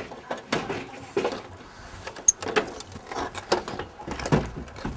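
Irregular knocks and clatter of household things being picked up and set down, with one sharp click about two seconds in.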